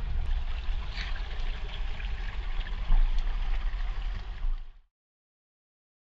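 Shallow rocky creek water running and trickling over a steady low rumble, cutting off suddenly about five seconds in.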